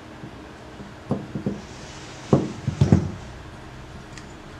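Knocks and clunks of a small aluminium motorcycle cylinder head being handled on a wooden workbench while a valve is fitted into its oiled guide. A few light knocks come about a second in, then louder clunks around two and three seconds.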